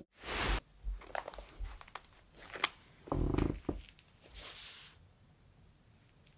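Rustling, scuffling and small knocks from kittens playing on a blanket-covered floor. The loudest parts are a short burst of noise just after the start and another about three seconds in.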